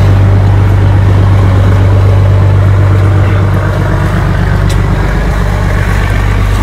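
A loud, steady low engine hum, even throughout, with a faint click about two-thirds of the way in.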